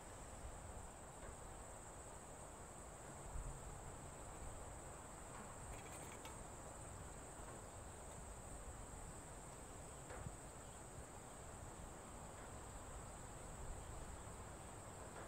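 Steady, high-pitched chirring of insects, with a couple of faint knocks about six and ten seconds in.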